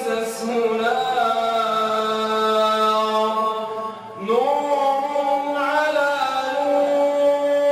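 A man reciting the Quran in melodic tajweed style, drawing out long sustained notes. One long held phrase breaks off about four seconds in, and a new phrase rises and is held to the end.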